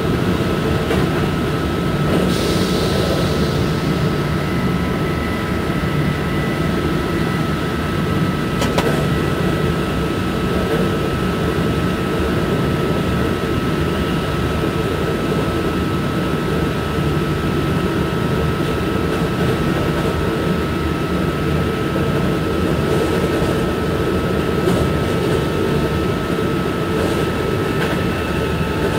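Steady running noise inside the cab of an SNCF BB 27300 electric locomotive under way: a deep rumble with a constant high whine over it. A brief hiss comes about two seconds in.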